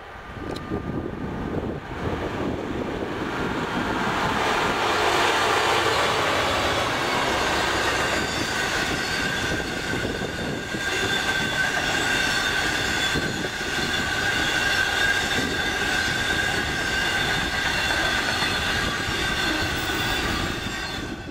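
Class 66 diesel freight locomotive passing with a long train of hopper wagons, getting louder over the first few seconds. The wheels rumble along the rails, and from about halfway a steady high squeal rises from the wheels on the curve.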